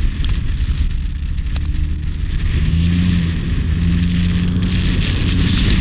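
Audi car driving through snow, heard through heavy wind rumble on an exterior-mounted camera microphone, with a steady engine hum coming up about halfway through.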